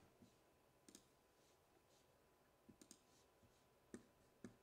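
Near silence with about six faint, irregular small clicks, the sharpest two near the end.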